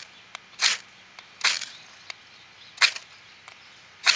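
A ferrocerium (flint) rod scraped repeatedly along the saw-back spine of a knife, four short sharp scrapes about a second apart, each throwing a shower of sparks onto dry-grass tinder that has not yet caught.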